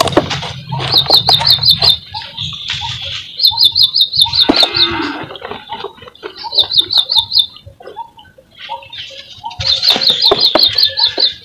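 Dry cement chunks crumbling in the hands: crackling breaks and powder and grit spilling into a bowl. Over it, a bird chirps in short, fast runs every few seconds, and a brief low call comes about halfway through.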